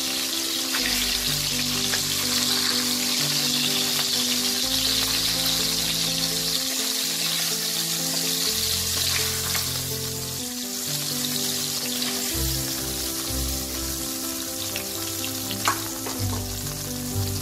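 Hilsa fish steaks sizzling in hot mustard oil in a wok as a spatula turns them and lifts them out. A single sharp click comes near the end.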